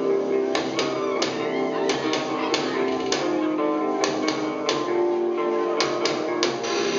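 Live band playing a song, with electric guitars and sharp percussive hits every half second or so.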